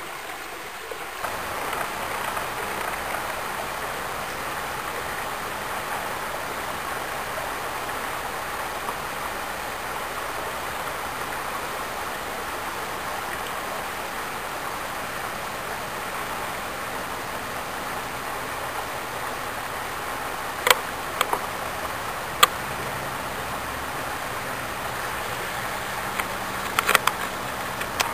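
Creek water running steadily over rocks and gravel, an even rushing that gets a little louder about a second in. A few sharp clicks come through about twenty seconds in and again near the end.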